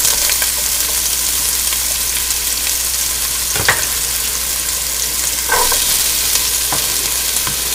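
Chopped onion sizzling steadily in hot olive oil in a pot, with a fresh surge of sizzling about five and a half seconds in as chopped green pepper goes in, and a single light click a little past three and a half seconds.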